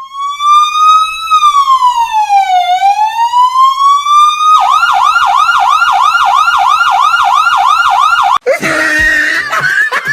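Fake electronic police siren: a slow wail rising and falling, then switching about four and a half seconds in to a fast yelp of about four sweeps a second. It cuts off sharply near the end, giving way to a different, noisier sound.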